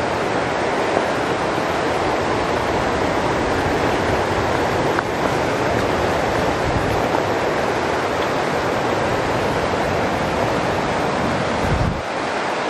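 Steady rush of a fast mountain stream tumbling over rocks, with wind buffeting the microphone.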